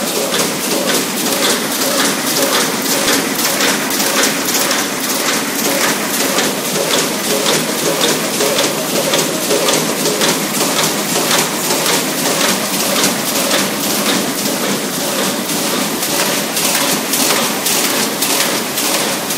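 OBPC550 automatic paper punching machine running, its belt feeder drawing sheets through the punch head with a rapid, even clatter of repeated mechanical strokes over a steady machine hum.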